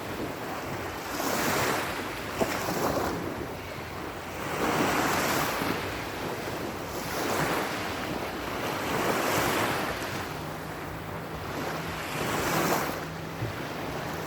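Sea waves surging in and washing back, each surge swelling and fading about every two seconds over a steady surf hiss.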